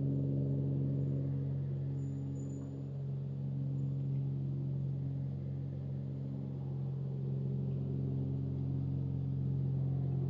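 Soft ambient background music: a steady low drone of held tones, with no beat.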